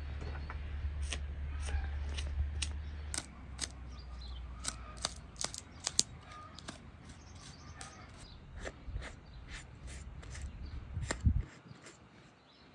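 A knife trimming the membrane and fat off a raw bull leg, giving a run of short, sharp clicks and snips. A low rumble runs under the first few seconds, and faint birds chirp in the background.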